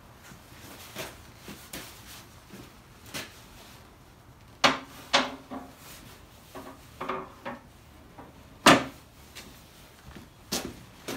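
A metal wear strip being handled and fitted against a painted snow plough blade: a handful of sharp metal knocks and clanks, some briefly ringing, with the loudest about three-quarters of the way through.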